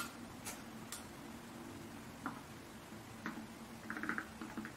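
Front-panel buttons of a FNIRSI 1014D digital oscilloscope clicking as they are pressed one at a time, with a quick run of ticks about four seconds in.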